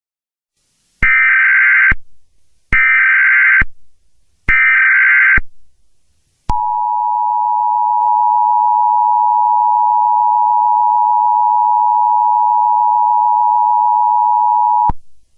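Emergency Alert System opening: three one-second bursts of warbling data tones (the SAME header), then the two-tone EAS attention signal. That is a steady, harsh dual-pitched tone held for about eight seconds before it cuts off.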